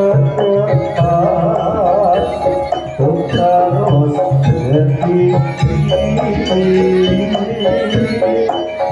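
Live jaranan gamelan music: hand drums beating a busy rhythm under ringing metallophone and gong tones, with a wavering, ornamented melody line over them.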